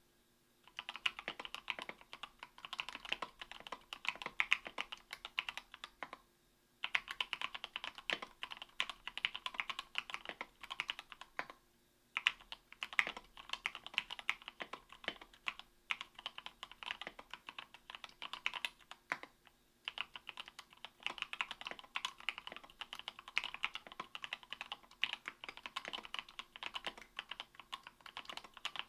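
Typing on an Octagon V3 mechanical keyboard with lubed Gateron Milky Yellow 50 g linear switches on an aluminium plate: fast, steady runs of keystrokes broken by a few short pauses.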